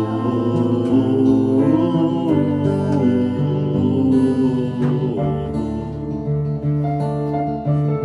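Solo piano accompaniment to a slow song, played live, with sustained chords and a melody line between sung phrases.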